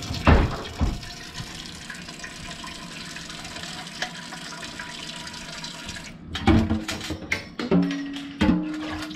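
Kitchen faucet running, a stream of tap water pouring into a metal pot in a stainless steel sink, with a loud thump about half a second in. The water stops about six seconds in, followed by short clinks and knocks.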